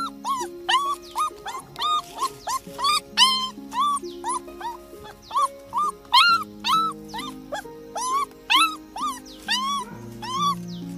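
A puppy crying in short whimpers that rise and fall in pitch, about two a second, over background music with long held notes.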